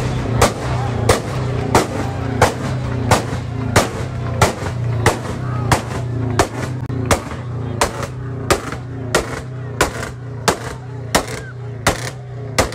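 Music with a steady, hard-hitting drum beat, about three beats every two seconds, over a steady low bass.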